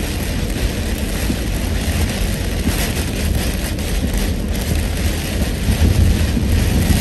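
A car driving on a wet highway in heavy rain, heard from inside the cabin: a steady low rumble of road and tyre noise, with rain hitting the windshield and body.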